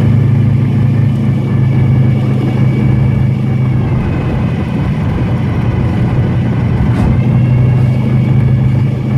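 The 383 V8 of a 1933 Ford Vicky hot rod, with dual four-barrel carburettors on a tunnel ram, running steadily at low road speed, heard from inside the car. A faint steady high whine rides over it, typical of a gear-driven timing set.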